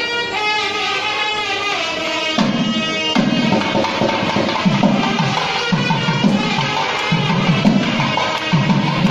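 Indian devotional background music: a melodic line for the first couple of seconds, then a steady drum beat of about one stroke every 0.7 s carrying the rest.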